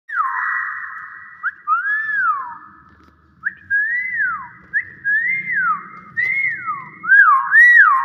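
A common hill myna whistles a run of clear notes, each sliding up and back down, about one a second. Near the end come three quicker, louder whistles.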